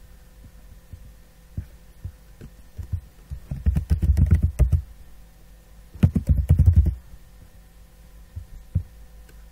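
Typing on a computer keyboard in two quick bursts of keystrokes, with a few single clicks before and after.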